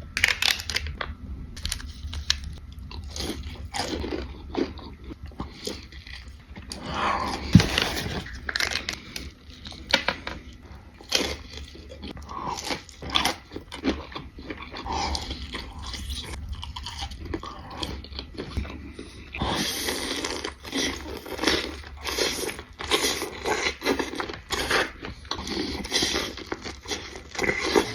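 Close-up eating sounds: food being bitten and chewed, with many short crunching clicks throughout, busier near the end.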